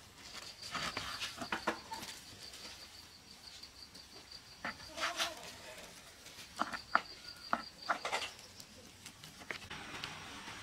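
Kitchen knife slicing pork roll on a plastic cutting board, the blade tapping the board with short sharp ticks every second or so. A high, evenly pulsing trill sounds in the background.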